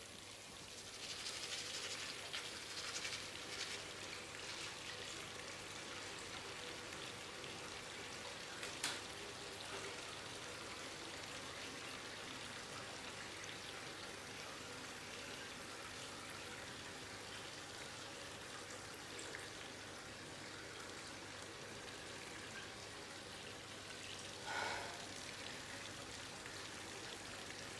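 Water running steadily from a bathroom tap into the sink, with toothbrush scrubbing over it in the first few seconds. A single click comes about nine seconds in.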